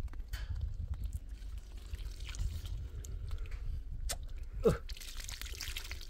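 Water spurting and trickling from a thin irrigation hose into a muddy hollow, starting about five seconds in, with small handling clicks before it. Just before the water starts there is one short, loud sound that slides down in pitch.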